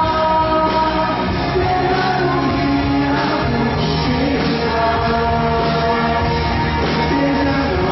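A male singer singing live into a handheld microphone over steady musical accompaniment.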